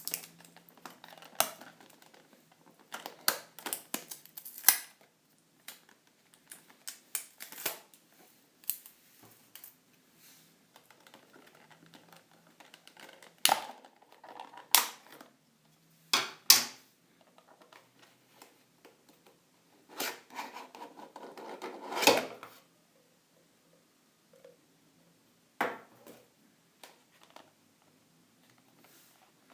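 Cardboard and plastic retail packaging being opened and handled by hand: irregular clicks, scrapes and rustles, with a few louder bursts of handling and quiet gaps between.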